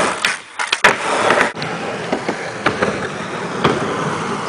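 Skateboard wheels rolling over a concrete bowl, a steady rolling rush broken by several sharp clacks from the board and trucks.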